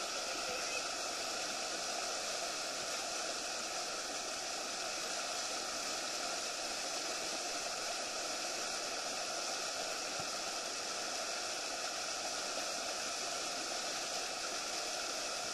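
Steady rush of white water churning in the wave below a river weir, close to the water.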